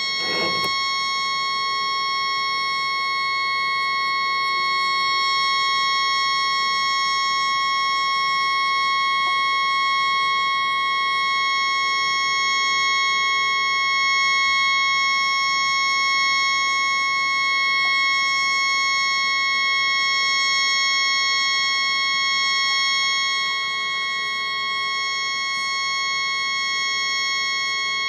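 A tugboat's horn stuck on and sounding without a break, one steady high tone with its overtones; the horn has malfunctioned and cannot be shut off. The recording is sped up four times, which raises the horn's pitch.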